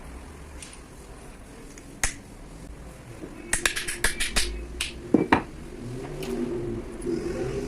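A quick run of sharp clicks followed by two louder knocks, from small hard parts being handled while the mini grinder is worked on. No grinder motor is running.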